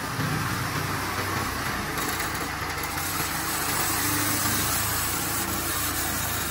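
Home-built horizontal sawmill running steadily: a low engine hum under a constant hiss.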